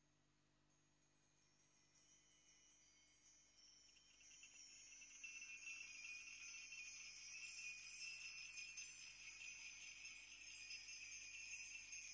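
Faint, high tinkling chimes fade in over the first few seconds, then ring on as a dense, steady shimmer of many small strikes. These are the melodious background sounds laid under a guided hypnosis session.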